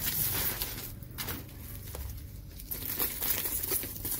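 Secondhand handbags rustling and crinkling as hands dig through a bale and pull them out, in a run of irregular scuffs and rustles.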